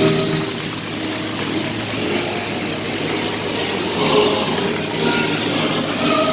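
Propeller engines of small aircraft flying low overhead in formation, a steady drone that swells a little partway through.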